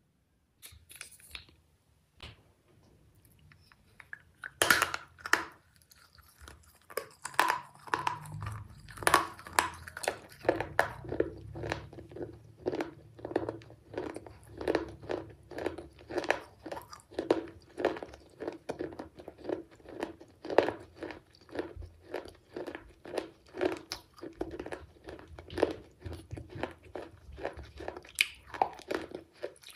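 Close-up biting and chewing of brittle baked-clay shards: a sharp crunch about five seconds in, then steady crunching chews about twice a second.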